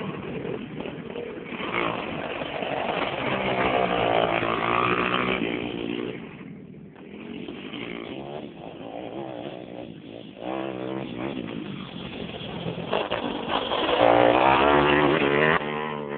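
Pit bike engine revving up and down as it is ridden. It fades about six seconds in, then builds again and is loudest near the end.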